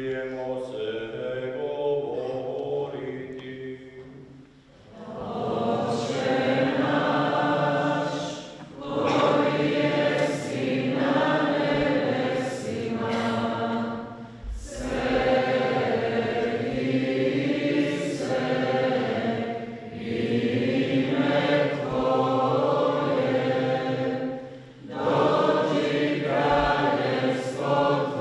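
A choir singing a hymn in long phrases with short pauses for breath between them. It is softer for the first few seconds, then fuller and louder from about five seconds in.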